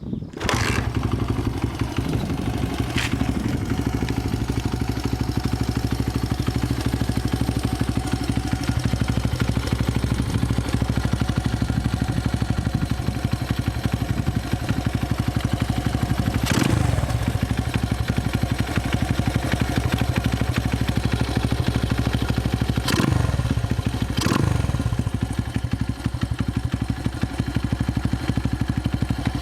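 Honda Ape 100's four-stroke single through a Yoshimura exhaust, catching about half a second in and then idling steadily. Three quick throttle blips come later, the last two close together, each falling back to idle.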